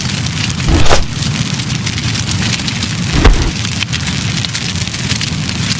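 Campfire crackling: a dense, steady patter of small pops over a low rumble, with two louder deep thuds about a second and about three seconds in.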